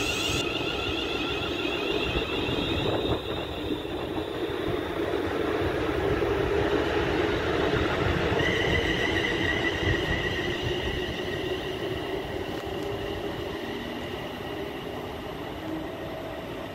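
London Northwestern Railway Class 350 Desiro electric multiple unit passing through at speed: a steady rush of wheels on rail. High steady whining tones join about halfway through, and the sound eases off slightly near the end as the last carriages go by.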